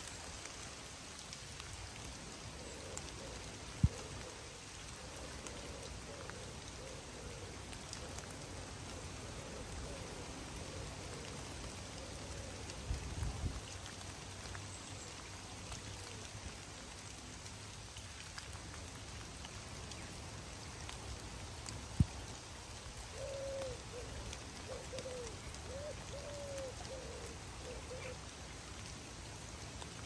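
Steady rain falling on a river surface and the foliage along its banks. Twice, a run of short low calls comes through the rain, and two sharp clicks stand out, one near the start and one about two-thirds of the way in.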